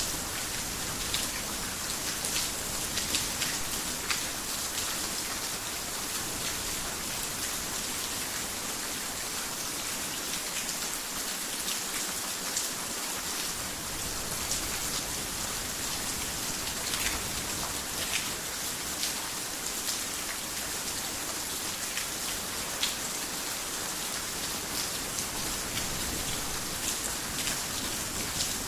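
Heavy rain falling on a roof: a steady hiss with many sharp individual drop strikes.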